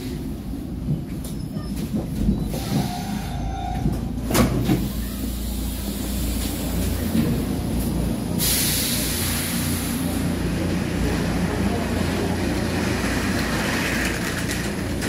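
Stockholm metro train noise: a steady low rumble, with a sharp knock about four seconds in. About eight seconds in comes a sudden loud hiss that fades over a couple of seconds.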